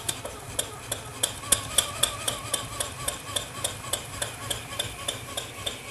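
PM Research 6CI horizontal steam engine running on compressed air, unloaded, just after being started. It runs with a regular beat that quickens over the first second and settles at about four beats a second, over a steady low hum.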